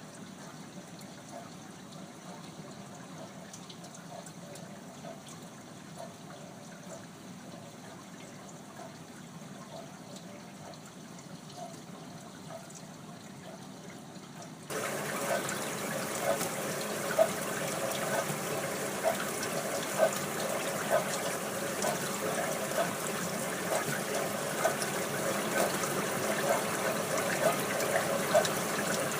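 Dishwasher running, water spraying and splashing inside it in a steady wash with irregular small splashes. About halfway through the sound suddenly gets louder and stays so.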